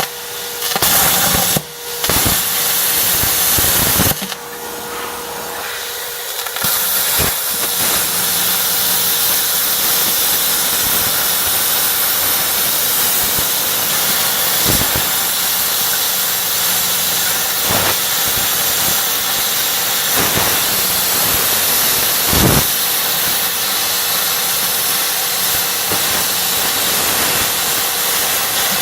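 Homemade plasma cutter, converted from a stick welder, cutting metal: a loud, steady hiss of the plasma arc and its air stream over a faint steady hum. The hiss breaks off briefly a few times in the first seconds.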